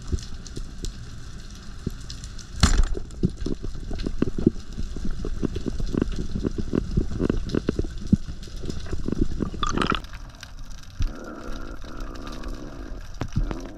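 Underwater sound of a speargun firing: one sharp crack a few seconds in, then a run of irregular clicks and knocks through the water as the shot fish is handled. A steady hum comes in near the end.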